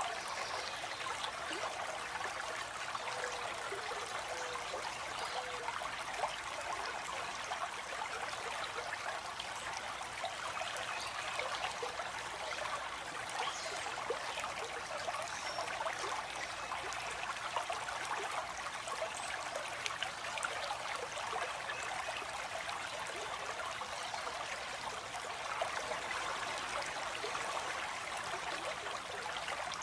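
A stream flowing steadily, a continuous babbling trickle of water.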